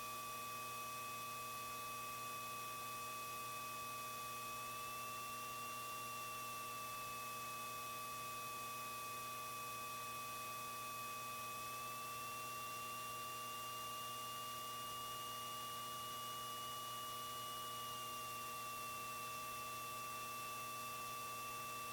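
Steady electrical hum and hiss from an aircraft's intercom and radio audio feed, with several fixed tones and a faint high whine that drifts slowly up and down in pitch.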